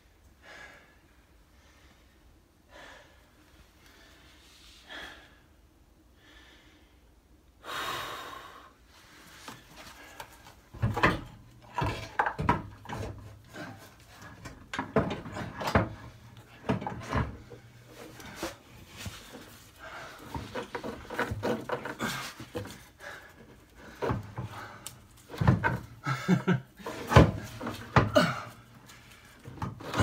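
Irregular metal knocks and clunks as a Citroen C1 gearbox is wrestled up into place by hand, mixed with a man's heavy straining breaths and grunts. It starts quiet, with a short scraping burst about eight seconds in, then the knocking and straining go on busily through the rest.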